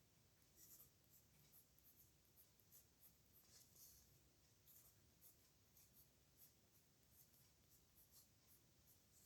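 Pen nib scratching on paper in short, irregular strokes of handwriting, faint.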